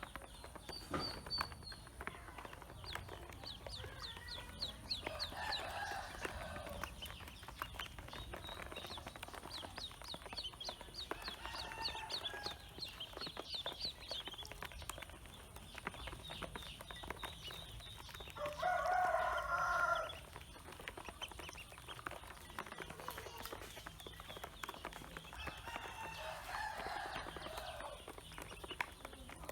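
Pekin ducklings peeping in rapid runs of short high notes, with a rooster crowing four times in the background. The third crow, about two-thirds of the way through, is the loudest.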